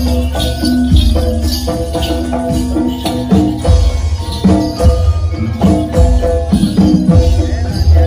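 Live East Javanese jaranan gamelan music: a dense, steady percussion beat of drums and gongs under sustained pitched metal tones, with jingling bells throughout.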